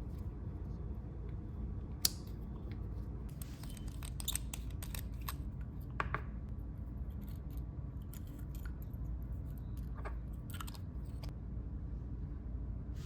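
Hand leatherworking: scattered small clicks, taps and crackles of tools and leather being handled, over a steady low hum.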